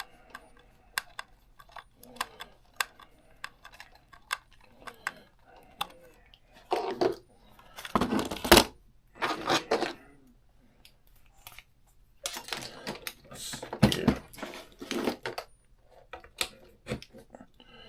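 Small plastic clicks and rattles of hands fitting a battery into a toy RC car and putting the spare battery on its charger, with a few louder scraping handling noises in the middle.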